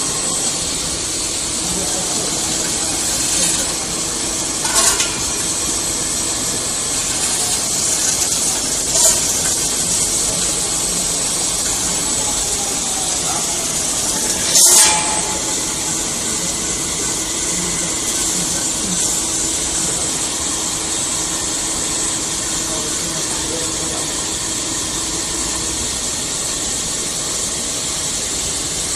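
Hoston SG300 CNC metal spinning machine running: a steady hiss with a high whine and a low hum, broken by a few short, sharp hisses, the loudest about halfway through.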